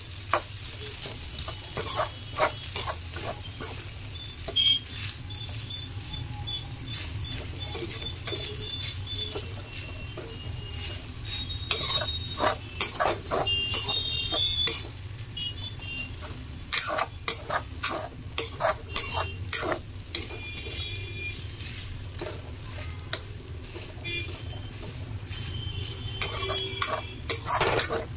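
Spatula scraping and knocking against a metal kadai as leftover rice is stir-fried, with a light sizzle underneath. The strokes come in irregular flurries over a steady low hum.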